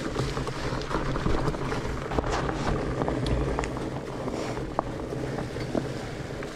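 Mountain bike rolling over a leaf-covered dirt trail: steady tyre and riding noise, with scattered sharp clicks and rattles from the bike.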